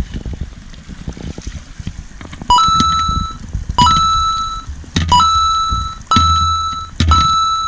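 A ringing electronic sound effect, dubbed in by the editor, repeats five times about once a second; each ring opens with a short lower blip and sits over a low hum. For the first couple of seconds before it starts there are only light clicks and rustling.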